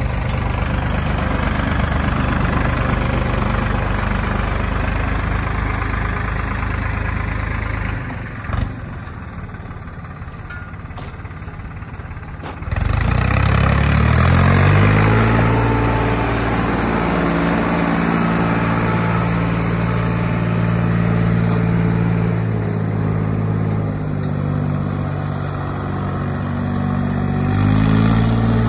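Massey Ferguson 431 tractor's diesel engine running as the tractor is driven. It drops to a quieter level around 8 seconds in, then revs up sharply just before 13 seconds and holds high revs, easing briefly around 24 seconds and picking up again near the end.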